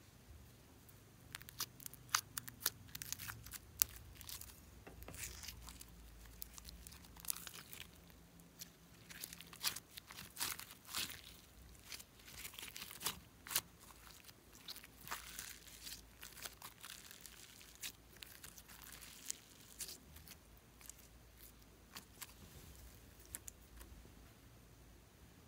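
Sticky slime being peeled out of a plastic container and stretched by hand, making an irregular run of small crackles and pops.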